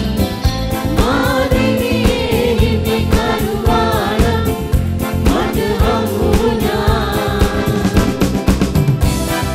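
Live Sinhala Christian song: singers at microphones backed by electronic keyboards, bass and a steady drum beat.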